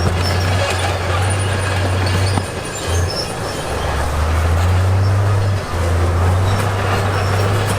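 Crawler bulldozer's diesel engine working under load, its pitch stepping up and down, with the steel tracks clanking and squealing.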